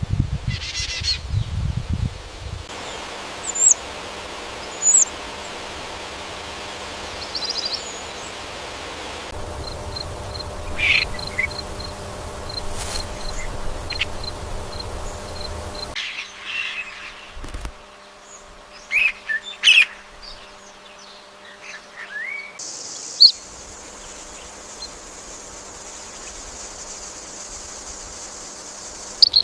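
Wild birds chirping and calling over an outdoor background hiss, in several short takes whose background changes abruptly. In one take a bird repeats a short high peep about twice a second.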